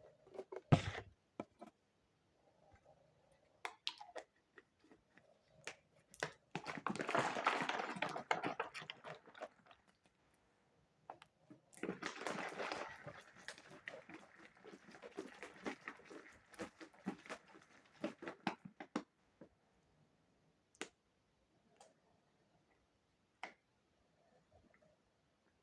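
A person chugging a milkshake, with wet gulping and swallowing sounds in two long stretches, the first about six seconds in and the second about twelve seconds in. There is a sharp thump about a second in.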